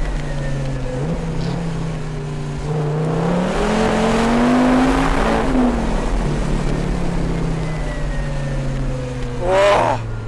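The Donkervoort D8 GTO-JD70's turbocharged Audi five-cylinder under hard acceleration, heard from the open cockpit with its side-exit exhaust and no rear silencer. The deep engine note climbs in revs for a few seconds, drops at about five seconds in, then eases lower. A brief vocal exclamation comes near the end.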